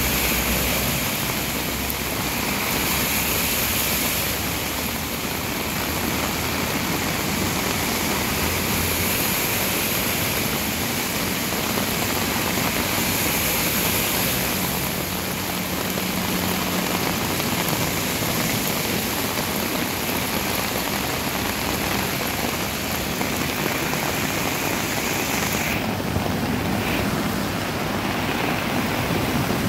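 Steady hiss of a heavy downpour with rushing floodwater, turning duller near the end.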